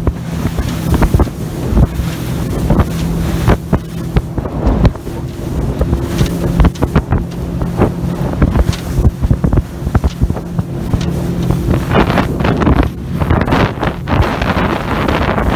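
Motor of a yellow inflatable boat running steadily under way, a constant low drone, with wind buffeting the microphone in irregular gusts.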